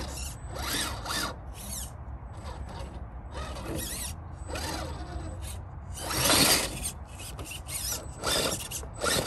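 Redcat Gen8 V2 1/10 rock crawler's electric motor and geared drivetrain whining in repeated short throttle bursts, the pitch rising and falling with each burst, as it crawls over logs.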